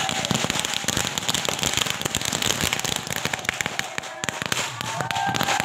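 A string of firecrackers going off in a dense run of rapid, irregular cracks, easing briefly about four seconds in.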